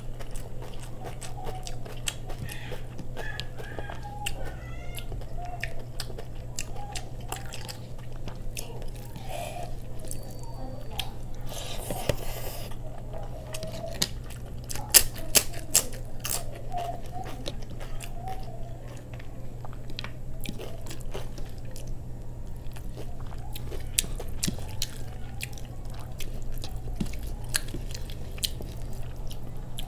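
Close-miked eating sounds: chewing, lip smacks and soft clicks as rice is mixed and eaten by hand. About halfway through there is a cluster of sharp crunches as a fried papad is bitten and broken. A steady low hum runs underneath.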